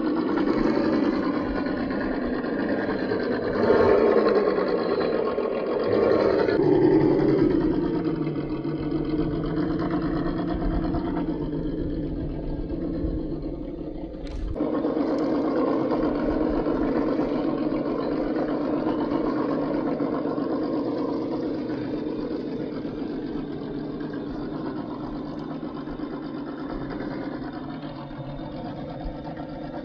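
Drive motor and gearing of a 1:10 scale RGT EX86190 RC crawler running as it crawls over rocks. Its pitch rises and falls with the throttle early on, with louder pushes at about four and seven seconds. A sharp break comes about halfway, then it runs more steadily and slowly grows quieter.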